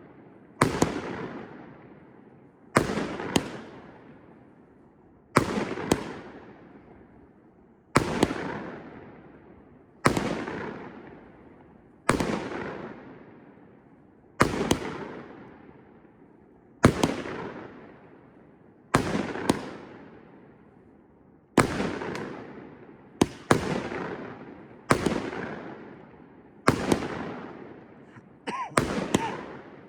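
Consumer firework cake firing a string of shots about every two seconds, each a sharp bang, some doubled, with a long fading tail.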